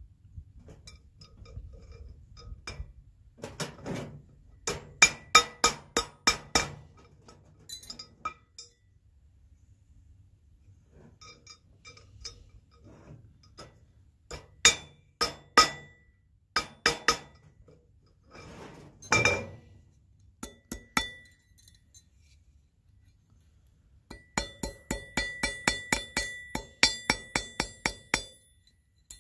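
Ball-peen hammer striking a copper cloak pin on a steel anvil, each blow a sharp ringing metallic clink. The blows come in short runs with pauses between them. Near the end they turn into a fast steady run of about four or five blows a second.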